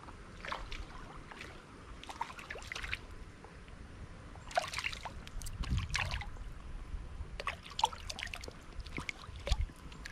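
Water splashing and trickling in short, irregular bursts at the surface of a creek, from a small hooked fish being played and brought in.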